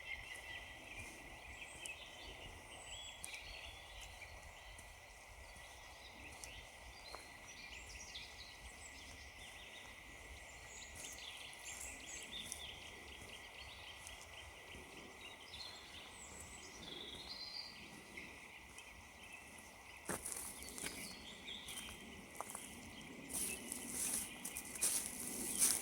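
Small woodland birds chirping and calling. Near the end, footsteps crunching on frozen leaves and ground come in.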